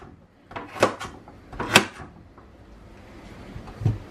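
Kitchen knife chopping through carrot onto a cutting board: two sharp knocks about a second apart, then a dull thump near the end.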